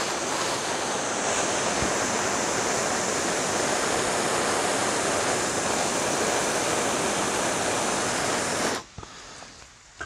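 Handheld gas torch on a yellow fuel cylinder burning with a steady hiss as its flame heats the blades of pruning shears to disinfect them. The flame is shut off suddenly near the end.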